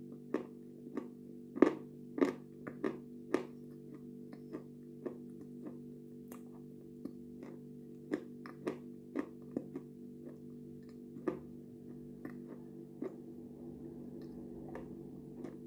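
Close-up mouth sounds of eating yogurt: irregular wet lip smacks and clicks, thickest in the first few seconds and again around the middle, sparser near the end. A steady low hum or drone sits underneath.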